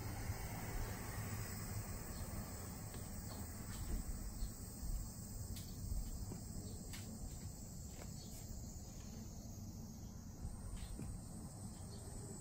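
Faint steady background noise with a low rumble and a few light clicks scattered through the middle.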